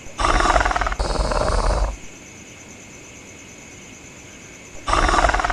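Dinosaur sound effects: velociraptor calls. Two loud calls, about a second each, come back to back with a deep rumble under them. After a pause a third call starts near the end.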